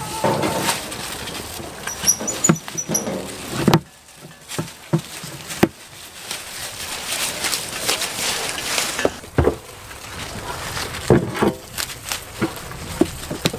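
Goats tearing leaves off leafy branches and chewing them: rustling foliage with irregular snaps and crunches.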